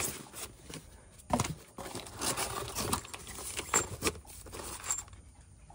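Plastic wrapping and a cardboard box crinkling and rustling in irregular bursts as a wrapped crankshaft damper is handled and lifted out. The rustling dies down about five seconds in.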